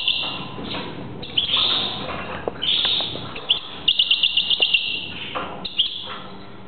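European goldfinch singing in a cage: bursts of high twittering phrases broken by short pauses, with a quick run of repeated notes about four seconds in.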